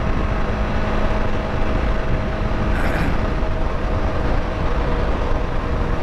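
Wind rushing over the microphone of a KTM Duke motorcycle at highway speed, with the engine's steady hum underneath. About halfway through, the engine note drops a little as the bike shifts up from fourth to fifth gear.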